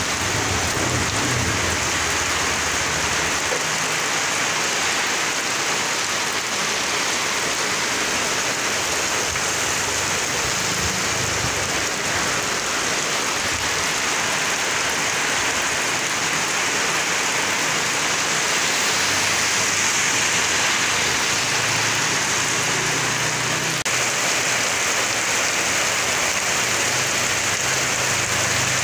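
Heavy rain falling steadily on a wet asphalt street and roofs.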